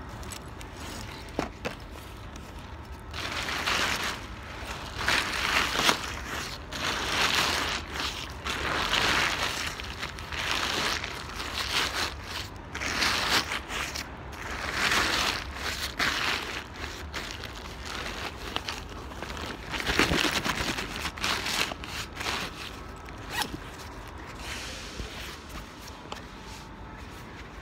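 A crinkly nylon ATV cover being handled, rustling and crinkling in irregular bursts every second or two.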